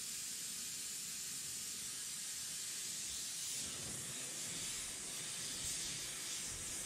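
Handheld gas torch burning with a steady hiss as its blue flame heats a knife tang clamped in a vise, to burn the tang into a wooden handle.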